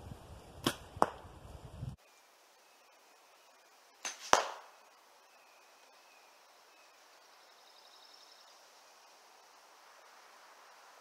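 A compound bow shot: two sharp snaps about a third of a second apart, the string's release and the arrow striking a foam block target. About four seconds in comes one more sharp, loud crack.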